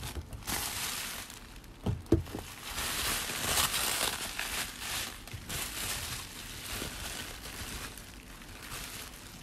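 Plastic bubble wrap rustling and crinkling as it is handled and opened, with a couple of sharp knocks about two seconds in.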